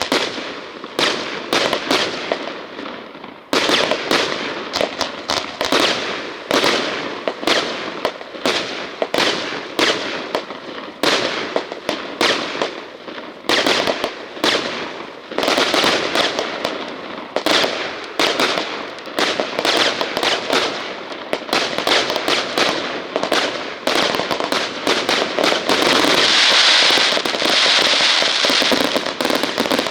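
Fireworks going off in a rapid, continuous barrage of sharp bangs and crackles. About two-thirds of the way through, a thicker hissing crackle builds up and carries on under the bangs.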